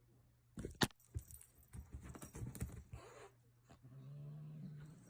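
Cat tussling with a toy: a run of knocks and scuffling with one sharp snap about a second in, then a low growl near the end.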